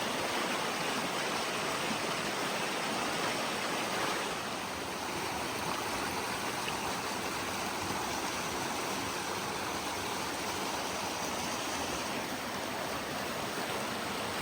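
Arroyo Seco creek water flowing steadily, a continuous hiss of moving water that dips slightly about four seconds in.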